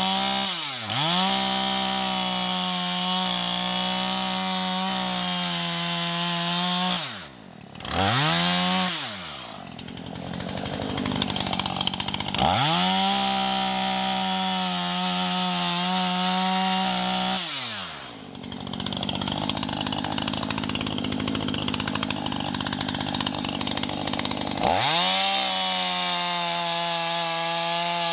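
Two-stroke chainsaw cutting through a tree trunk: it revs up four times, holding at full throttle through each cut, then drops back.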